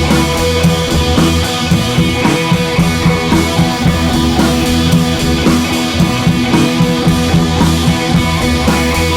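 Loud rock backing music with drums and electric guitar and a steady driving beat.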